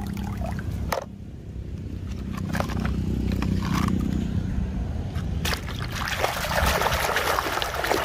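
Muddy water splashing and sloshing as a plastic toy is swished about in it by hand. In the middle there is a quieter stretch with only a low rumble, and the splashing comes back louder for the last couple of seconds.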